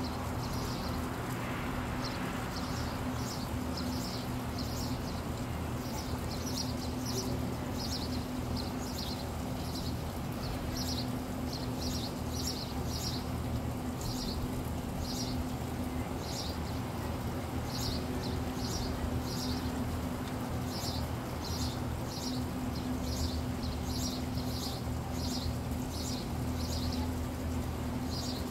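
A bird chirping over and over in short high calls, about one or two a second, over a steady low mechanical hum.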